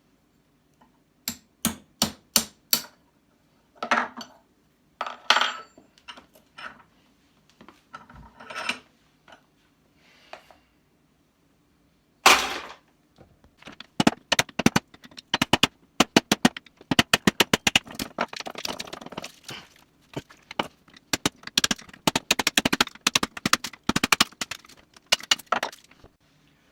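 Hand tools working on scrap: sharp knocks and clicks as a part is broken apart to get at the copper inside. There are a few separate strikes in the first half, then a fast run of many knocks and taps through the second half.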